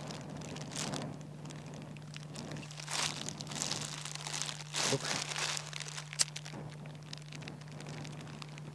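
Plastic bag crinkling and rustling in irregular bursts as it is handled, with one sharp click about six seconds in, over a steady low hum.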